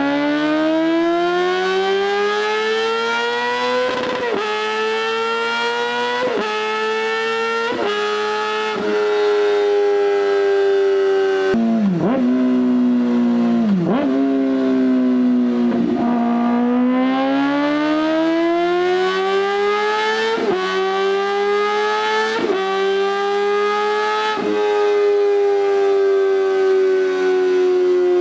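Kawasaki ZX-4R's inline-four through an Austin Racing exhaust, revving very high as the bike accelerates. The pitch climbs and drops sharply with each upshift, several in quick succession. A little under halfway it dips twice, then climbs again through more shifts.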